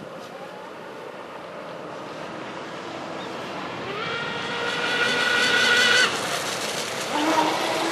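Brushless electric motor of a Genesis Offshore RC catamaran, running on a 6S pack, whining at a high steady pitch as the boat runs at speed. The whine rises about four seconds in, grows louder, then cuts off suddenly as the throttle is released. A lower whine comes back near the end.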